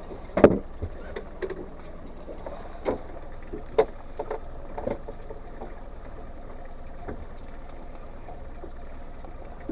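Boat motor running steadily, with a few sharp knocks; the loudest comes about half a second in.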